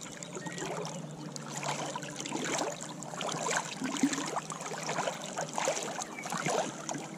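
Shallow river water sloshing and splashing irregularly around a landing net held in it, as a caught shad is moved about to revive it before release; the splashing gets busier from about a second and a half in.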